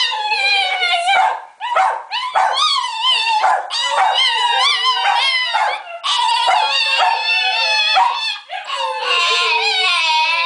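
Italian greyhound howling in long, high, wavering cries, broken by a few short pauses.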